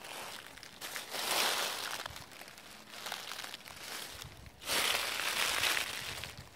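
Footsteps crunching through a thick layer of dry fallen leaves, each step a crackling rustle. Slow, unhurried steps: a loud one about a second in, a lighter one near the middle, and a long loud one about five seconds in.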